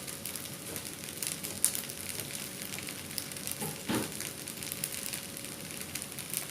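Seafood fried rice sizzling in a hot pan, with scattered crackles and one brief fuller sound about four seconds in.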